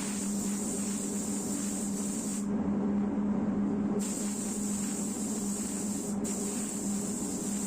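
Compressed-air spray gun hissing as it sprays a coat onto a car door. The hiss stops for about a second and a half about two and a half seconds in, then breaks again briefly about six seconds in, over a steady low hum.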